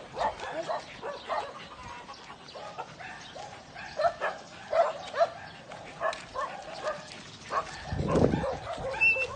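Small dogs whining and yipping in short, high cries, over and over. A low rumble joins near the end.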